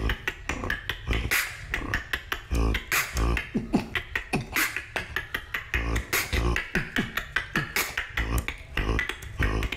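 Beatboxing with the lips held apart by a cheek retractor, no lips used: a steady beat of deep bass kicks under rapid sharp clicks and snares, with short pitched vocal sounds between.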